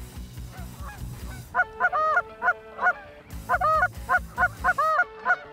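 Canada geese honking, a rapid series of calls beginning about a second and a half in and coming several times a second.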